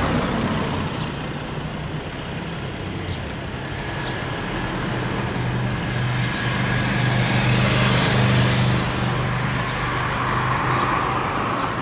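Emergency vehicles and street traffic driving past, with tyre noise and a steady engine hum from about four seconds in. No siren is sounding.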